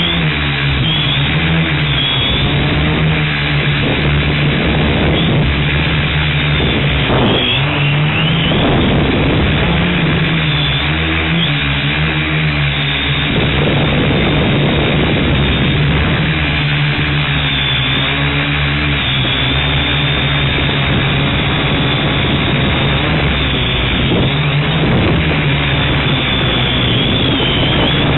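Quadcopter's four electric motors and propellers, a DJI Phantom 2 Vision+, running in flight with a steady buzzing hum whose pitch drifts up and down as the throttle changes.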